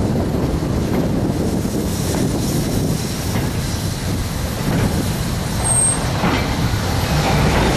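Freight train of steel coal hopper wagons rolling past: a steady rumble of wheels on the rails.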